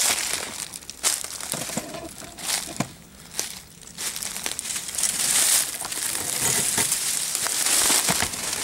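Footsteps crunching and rustling through dry fallen leaves and brush, uneven at first and more continuous in the second half.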